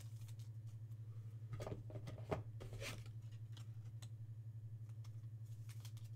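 Faint rustling and clicking of a trading card being handled and fitted into a rigid plastic card holder, with one sharp click about two seconds in, over a steady low hum.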